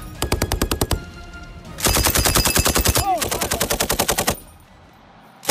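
Belt-fed M240 7.62 mm machine gun firing: a short burst of under a second, then after a brief pause a longer burst of about two and a half seconds, the shots coming rapidly and evenly at roughly a dozen a second.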